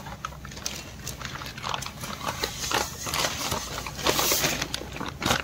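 Plastic wrapping crinkling and rustling as a new piston is unwrapped and lifted out of its cardboard box. It is loudest about four seconds in, and there is a sharp click near the end.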